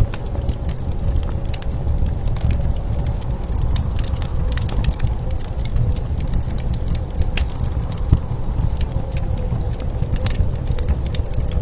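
Wood fire crackling with frequent small sharp pops, over a steady low rumble of blizzard wind with a faint steady whistle.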